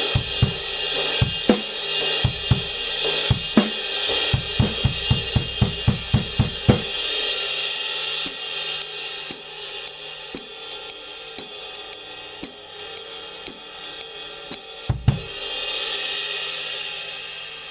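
Kingdo Artist Dark 20" ride cymbal played with a stick in a steady pattern over a drum-kit groove with bass drum, then ridden on its own for several seconds. About fifteen seconds in, a loud accent lands with a bass-drum thump, and the cymbal's wash rings out and slowly fades.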